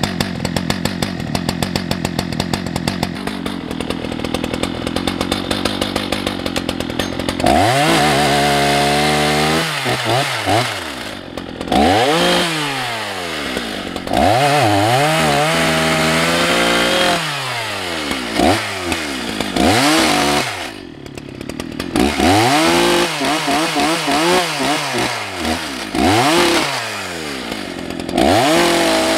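Husqvarna 181 SE two-stroke chainsaw idling for about seven seconds, then opened up again and again as it cuts into ash logs. The engine pitch rises, holds and drops back with each cut.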